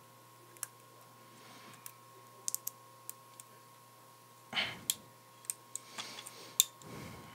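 Scattered light clicks and taps of small parts and tools being handled while an A1502 Retina MacBook Pro is reassembled. Two brief rustles come in the second half, and a faint steady hum runs underneath.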